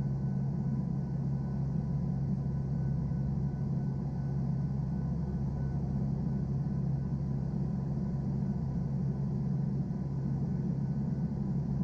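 Turboprop aircraft engines and propellers running steadily, heard from inside the cabin: an even low drone with fainter steady tones above it.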